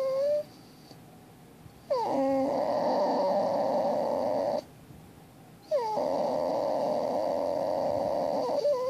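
A baby's long held vocal sounds, each lasting two to three seconds, starting with a quick drop in pitch and then held on one wavering note, with short breath pauses of about a second between them.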